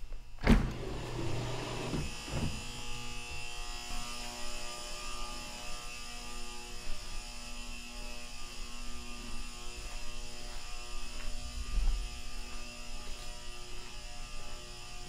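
A sharp knock, then a steady mechanical hum with several pitches held level, like a running motor or machine. A low thump comes near the end.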